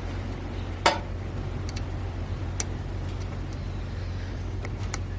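Light clicks and ticks from a throttle body's throttle wheel and linkage being turned by hand, the loudest click about a second in, over a steady low hum.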